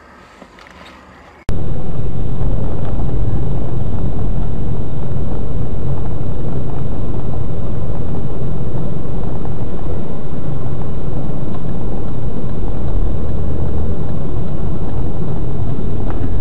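Loud, steady rumble of a vehicle in motion, starting abruptly about a second and a half in.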